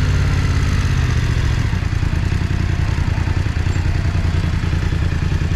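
BMW F900R's parallel-twin engine running at low revs, a low, steady rumble, with street noise around it.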